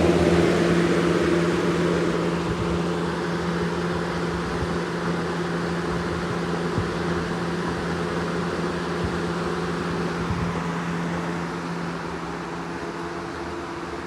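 A Lakewood-built Dayton 4C510/B box fan running on high speed: a steady rush of air over a constant motor hum, growing gradually quieter through the second half.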